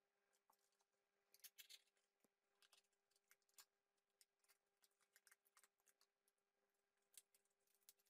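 Faint taps, clicks and rustles of cut cardboard frame pieces being handled and set down on a table, over a faint steady hum.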